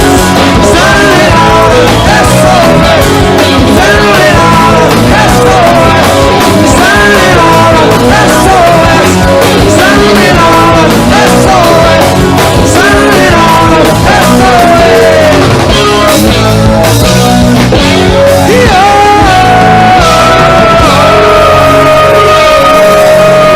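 Loud rock music from a three-piece band: electric guitar, bass and drums, with singing at times. A long held note comes in near the end.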